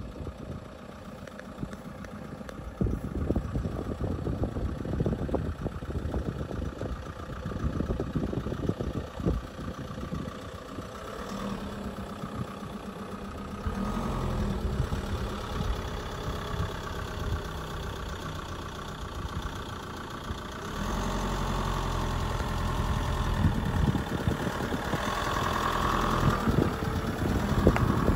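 An engine running.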